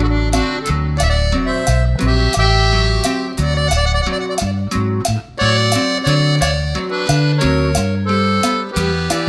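Background music with a steady beat: an upbeat instrumental with a reedy melody over bass and percussion.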